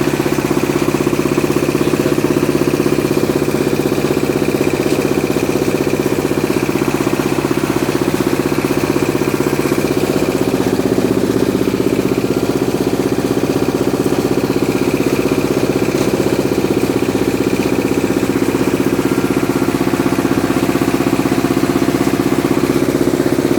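Engine-driven corn grinding mill running steadily with an even drone.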